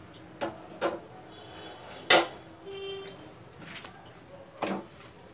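Kitchen handling: four short sharp knocks and clatters of utensils or cookware, the loudest about two seconds in.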